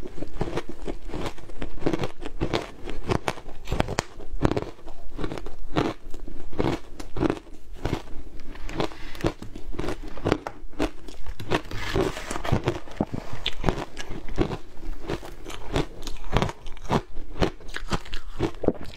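Frozen shaved ice being bitten and chewed close to a clip-on microphone: a steady run of sharp, crackly crunches, several a second.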